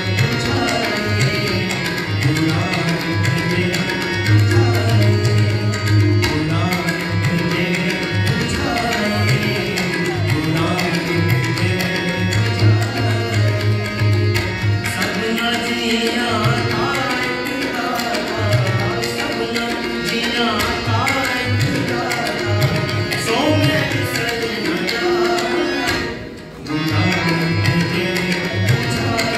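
Sikh shabad kirtan: voices singing a devotional hymn over harmonium, with tabla strokes keeping a steady rhythm. The music drops out briefly near the end, then resumes.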